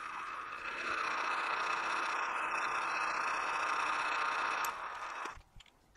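Metal lathe turning while a parting tool cuts through a 5/8-inch round bar, a steady scraping cut with a faint whine. It stops about five seconds in.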